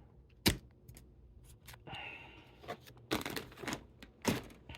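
Model kit parts and their plastic packaging being handled: a sharp click about half a second in, then rustling and a cluster of crinkling, clicking crackles near the end.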